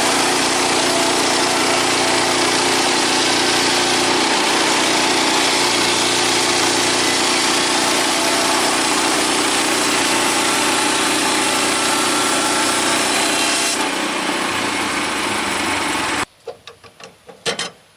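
Woodland portable band sawmill running under load, its engine and blade sawing through an old hardwood timber. The sound changes a little about fourteen seconds in, then cuts off suddenly, followed by a few sharp knocks.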